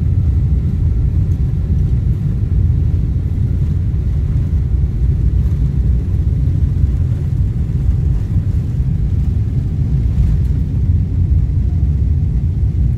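Loud, steady low rumble inside a jet airliner's cabin during the takeoff roll: engines at takeoff thrust and the wheels running down the runway.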